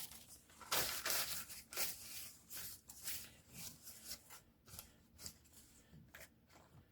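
Newspaper being torn into strips by hand: a run of short rips, loudest about a second in and growing sparser toward the end.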